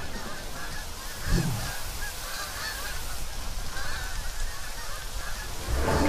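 A flock of geese honking, many short calls overlapping.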